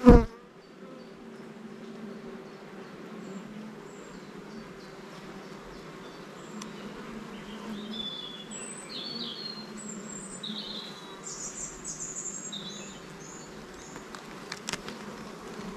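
Honeybees buzzing steadily around an open swarm box, with birds chirping and squabbling nearby from about three seconds in until near the end. A single sharp knock right at the start.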